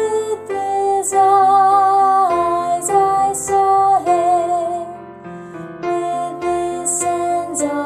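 A slow, gentle song: a voice singing long held notes with vibrato over a soft accompaniment.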